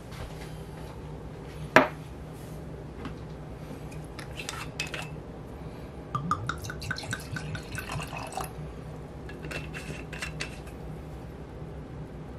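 Liquid glugging from a glass bottle as it is poured into a glass tumbler, about six pulses a second for a couple of seconds around the middle. Before and after the pour there are light glass clinks, and about two seconds in there is one sharp knock, the loudest sound.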